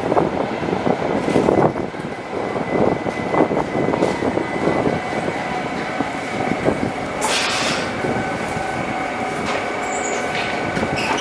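A Duewag B80C Stadtbahn train running into an underground station: wheel rumble and clatter over the track with a steady high squeal as it brakes to a stop. A loud hiss of air comes about seven seconds in, and a short high beep near the end.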